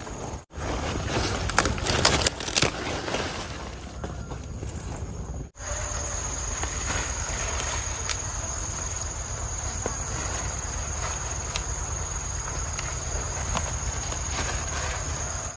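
Insects trilling steadily at a high pitch over an outdoor background, starting after a short break about five seconds in. Before that, crackling and snapping as leafy greens are picked by hand, with the sharpest snaps about two seconds in.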